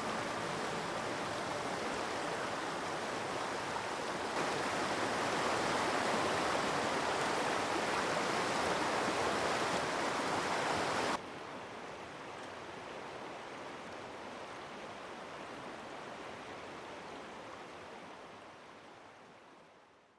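Forest stream water flowing in a steady rush. It gets louder about four seconds in, drops suddenly to a quieter level about eleven seconds in, and fades out near the end.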